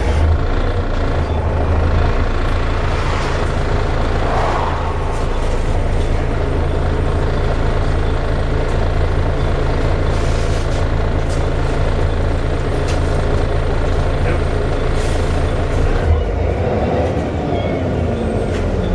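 Volvo B7TL bus's six-cylinder diesel engine running with a steady, loud low drone, with a couple of short air hisses from the air brake system about ten and fifteen seconds in.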